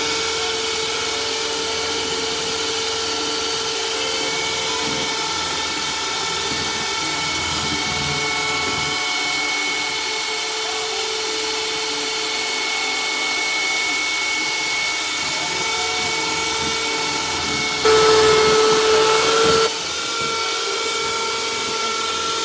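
Electric hand mixer running steadily, its twin beaters whipping egg batter in a plastic bowl with a constant motor whine. It grows louder for a couple of seconds near the end.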